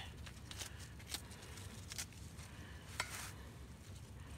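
Napa cabbage leaves torn apart by hand: a few short, crisp snaps and rips, the loudest about three seconds in.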